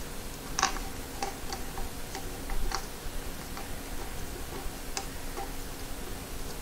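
Light, irregular metal clicks and taps as bolts are handled and threaded into a VW water pump housing, over a faint steady hum.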